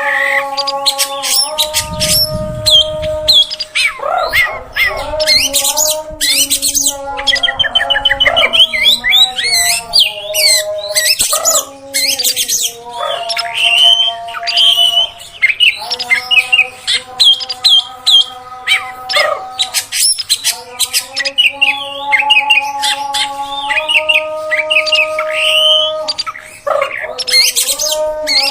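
Oriental magpie-robin (kacer) singing a long, varied song of fast chirps, whistles and harsh notes, used as a lure recording to make a caged bird sing. Underneath run steady held tones that shift in pitch every second or two.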